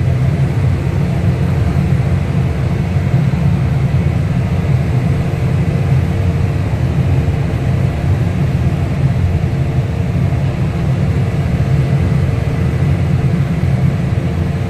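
Tractor engine running steadily while pulling a straw rake, heard from the driver's seat: a steady low rumble with an even higher tone above it.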